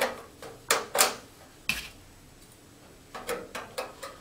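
Sharp clicks and knocks of T5 fluorescent tubes being fitted into their sockets in a sheet-metal fixture housing. There are several clicks in the first second, one about halfway, and a quick run of three near the end.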